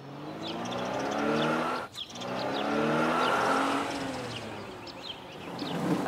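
Cartoon toy-truck engine sound effect: a small engine revving up twice, rising in pitch, as the little dump truck drives. Birds chirp in the background, and a sudden loud burst comes right at the end.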